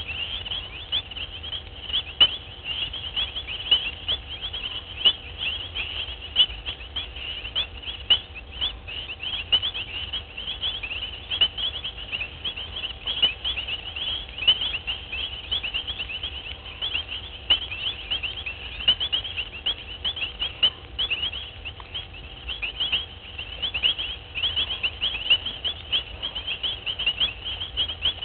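Dense night chorus of rapid, high-pitched chirps, steady throughout, with occasional sharp clicks over it.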